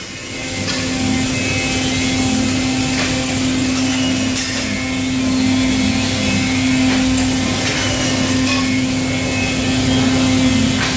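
Steady drone of running factory machinery: a constant hum with one held low tone, and a few faint knocks.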